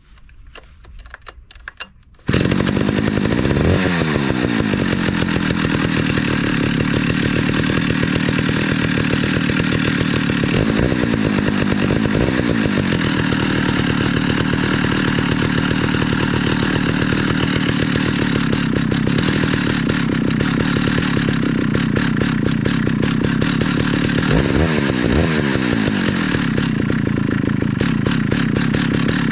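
Vintage Stihl 051 two-stroke chainsaw of about 89 cc, warming up: a few clicks, then about two seconds in the engine comes in abruptly and runs steadily, its speed shifting briefly three times.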